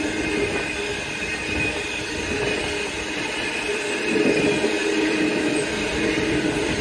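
Sydney Trains electric train moving through the station, a continuous rolling rumble with steady whining tones, growing a little louder about four seconds in.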